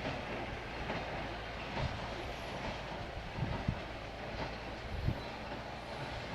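Ford 5600 tractor's three-cylinder diesel engine running steadily with a rattling, clattering undertone, and a few short clunks past the middle.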